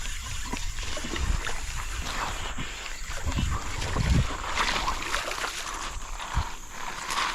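Irregular splashing and sloshing of creek water, with low wind rumble on the microphone, while a hooked bass is reeled in.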